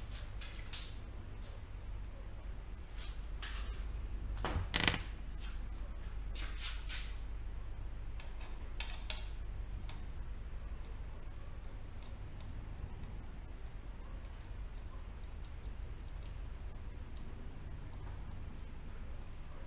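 A cricket chirping steadily, about two chirps a second, over a low steady hum. A few clicks and knocks stand out, the loudest about five seconds in.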